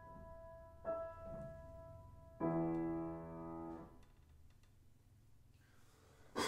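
Grand piano playing the last notes of a classical piece. A note is struck about a second in, then a final chord about two and a half seconds in, held for about a second and a half and released, leaving quiet room tone. A short, sharp noise comes at the very end.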